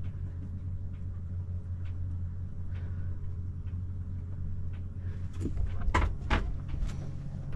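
Boat's freshwater pressure pump running with a steady hum as the water system builds up to pressure. A few sharp knocks and clicks about six seconds in.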